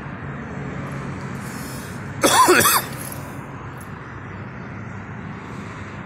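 A person coughs once, a single short voiced cough about two seconds in, over steady background noise.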